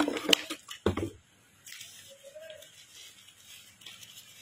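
A few sharp clicks and a low knock in the first second as leather sandals are handled and set down on a wooden floor, then faint rustling of the white wrapping around a new sandal.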